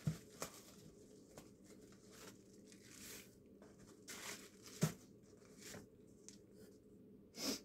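Bubble wrap crinkling and rustling as wrapped items are pulled out of a cardboard box, faint, with scattered light crackles and a sharper click about five seconds in.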